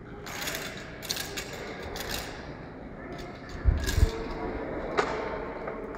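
Handling noise from a hand-held phone: rustling and small clicks, then two heavy thumps on the microphone just under four seconds in as the phone is swung down, and a sharp click near the end.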